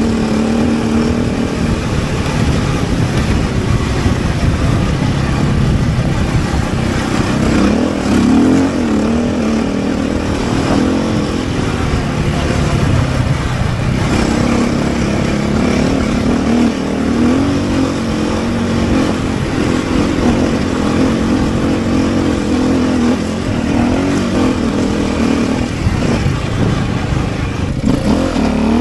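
Vehicle engine running while under way, its pitch rising and falling with the throttle, over a steady rush of road and wind noise.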